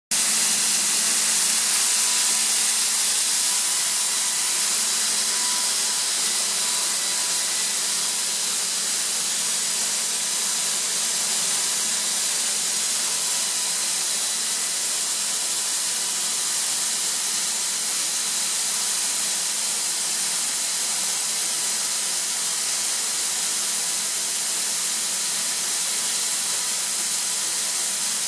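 Atlas Copco ZT 145 oil-free rotary screw air compressor running steadily: a constant loud hiss with a faint steady whine.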